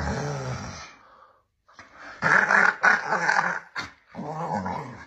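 Grey pit bull-type dog growling and grumbling in play, three long wavering vocal runs one after another.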